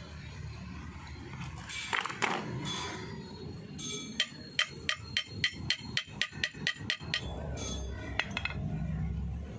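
A steel box spanner taps on a new drum-brake shoe and its metal fittings: a couple of heavier knocks, then about a second later a quick even run of about a dozen light metal taps, roughly five a second for some three seconds.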